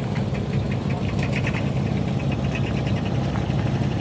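An engine idling steadily, with a fast, light ticking over it.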